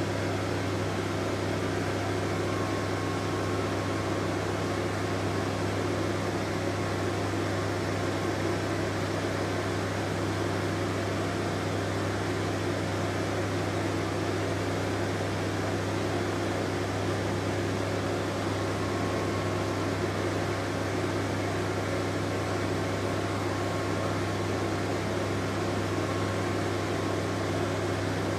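A steady low mechanical hum with a strong low drone, unchanging.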